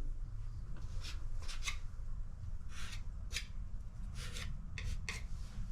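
A butter knife scraping wood filler into and across nail holes in wooden trim: a series of short, irregular scrapes.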